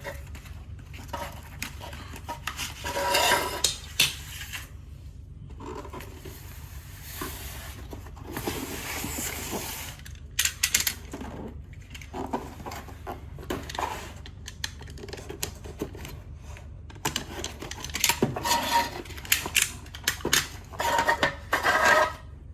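Plastic dominoes clicking and clattering against each other as they are handled, with stretches of packaging rustling in between.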